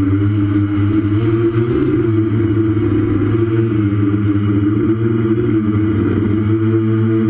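Brushless T-Motor (Tiger) motors and propellers of a 6S FPV quadcopter running with a steady hum, heard through the onboard camera as the craft lifts off and climbs. The pitch shifts slightly near the end.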